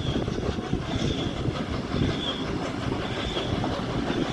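Heritage train carriage rolling on the rails, a dense steady rumble with faint high squeals recurring about once a second, as the train runs into a station.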